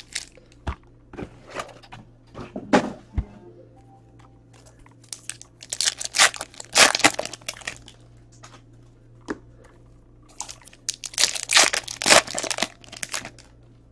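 Foil trading-card pack wrappers being torn open and crinkled, in two spells of crackling, one about five to seven seconds in and one near the end. Before that, scattered light clicks of cards being handled.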